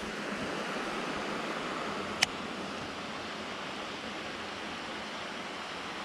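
Steady rushing outdoor background noise, with a single sharp click about two seconds in.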